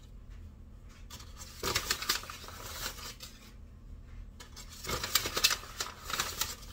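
Paper flour bag crinkling, with the scrape and tap of a plastic quarter-cup measure as flour is scooped out and dumped into a bowl. It comes in two short bursts of rustling and tapping, about two seconds in and again from about five seconds in.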